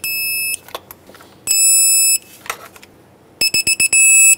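Digital torque wrench beeping while tightening valve cover bolts to 89 inch-pounds: a high-pitched long beep at the start, another about a second and a half in, then a run of quick beeps running into a long beep near the end. The long steady beep is the wrench's signal that the set torque has been reached, with a few faint clicks between beeps.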